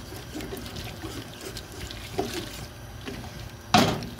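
Wooden spoon stirring vegetables in red wine and scraping the bottom of an aluminium stockpot, the liquid sloshing: deglazing, lifting the stuck-on fond. One louder clunk comes near the end.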